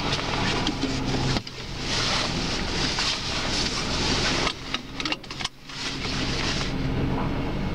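A vehicle running: a steady low engine hum under a rushing hiss. It drops out abruptly about a second and a half in and again a few times around five seconds in.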